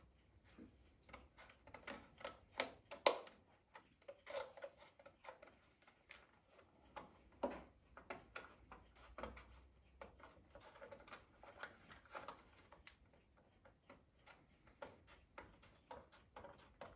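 Scissors snipping through the card and window parts of a card model kit: a string of small, irregular clicks and snips, with one sharper snip about three seconds in.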